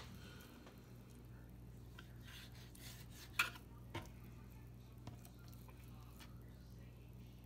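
Fillet knife clicking and scraping on a plastic cutting board while trimming pin bones from trout fillets: a few light, short knocks, the loudest about three and a half seconds in.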